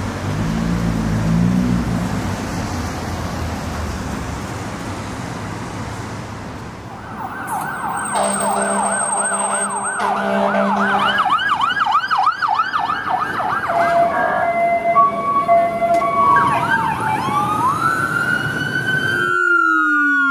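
Fire truck engine rumble, then about 7 s in an electronic siren starts a fast yelp, warbling up and down a few times a second. It gives way to steady horn blasts and slower wailing sweeps. Near the end a sudden cut brings in another fire engine's siren, falling in pitch.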